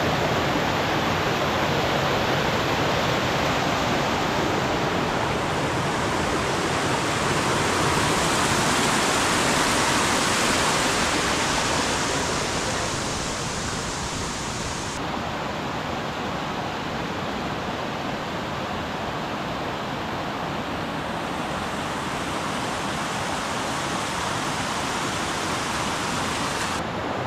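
Rushing water of a rocky mountain stream, a steady rush that eases off a little about halfway through.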